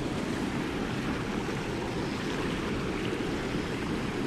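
Steady rush of water from a shallow stream run flowing over rocks.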